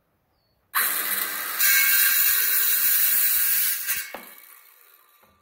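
Ryobi cordless circular saw starting up about a second in and cutting through a wooden board, with the motor's whine louder while the blade is in the wood. The trigger is released near four seconds in and the blade spins down.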